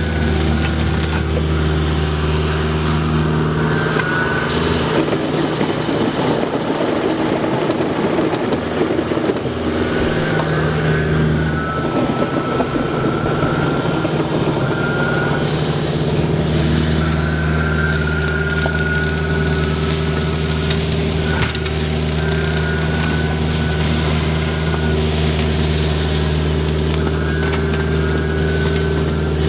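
Machine-mounted 48-inch open-face rotary brush mower running while cutting brush, over the steady engine of the carrier machine. A high whine comes and goes, and from about three to sixteen seconds in the steady engine sound gives way to rough crackling as the mower chews through thicker wood.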